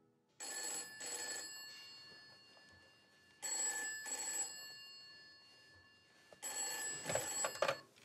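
Cream rotary-dial telephone's bell ringing in pairs, ring-ring, three times about three seconds apart. Other irregular noise is mixed into the last ring.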